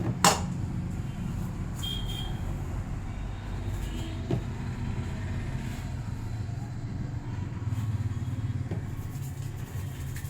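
Steady low rumble like passing traffic, with a single sharp snap about a quarter second in and a few faint clicks later, from the head massage.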